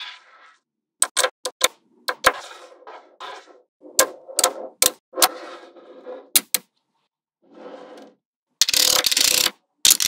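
Small magnetic balls clicking as they snap onto one another, with rattling as clusters of balls are pushed and rolled into place: a scatter of sharp clicks through the first seven seconds and a longer, louder dense rattle near the end.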